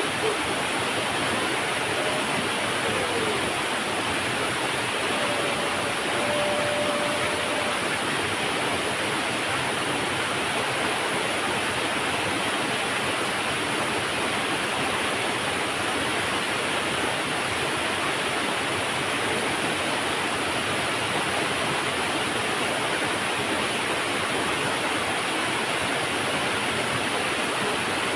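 Small river waterfall pouring: a steady, even rush of falling water.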